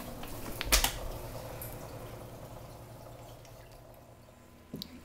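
A sharp double knock about a second in, then faint light taps and clicks, as a cat's paws and claws move over tile flooring and onto a carpeted cat tower.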